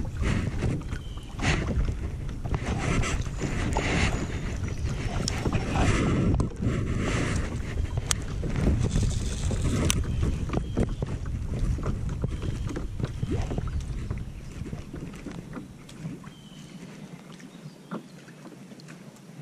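Wind buffeting the microphone over water sounds around a kayak, with a few sharp clicks and knocks. The wind noise eases off about three-quarters of the way through, leaving quieter water and handling sounds.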